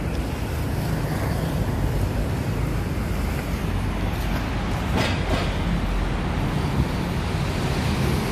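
Steady low rumble of city road traffic, with a short louder rush about five seconds in.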